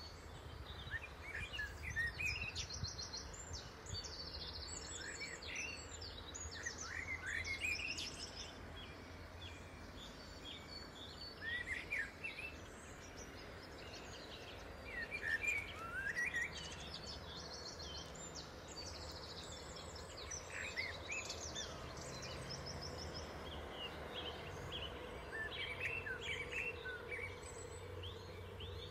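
Small birds chirping and singing throughout, with short rising and falling calls and quick high trills, over a steady low rumble.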